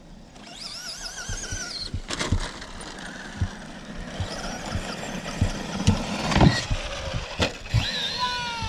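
Electric Traxxas RC trucks driving hard: motors whining up and down, tyres churning gravel, and a run of sharp knocks and thumps from the chassis hitting the ground, the loudest about six and a half seconds in. Near the end a motor whine falls in pitch as a truck slows.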